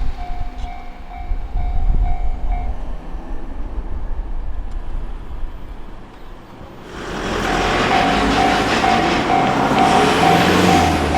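Japanese railway level-crossing alarm ringing at about two rings a second as a train's rumble fades; the alarm stops about two and a half seconds in. Around seven seconds in, the noise of an oncoming train rises and the crossing alarm starts ringing again.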